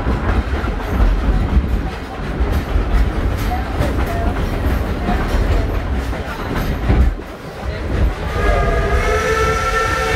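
Narrow-gauge passenger cars rumbling and clattering along the track behind a coal-fired Baldwin 2-8-2 steam locomotive, heard from an open-sided car. About eight and a half seconds in, the locomotive's steam whistle starts to blow, a steady chord of several tones that keeps sounding.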